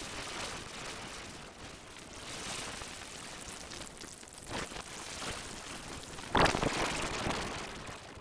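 Bathwater splashing and sloshing, with a sharper splash a little after four seconds and the loudest splash about six seconds in.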